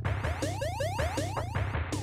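Electronic dance intro music: a pulsing bass line under rapid falling synth sweeps, about five a second.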